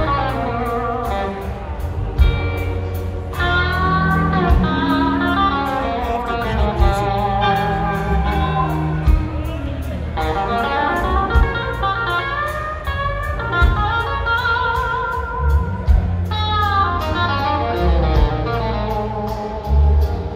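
Live blues-rock band playing: electric guitars over bass and drums, with a lead line of wavering, bending notes.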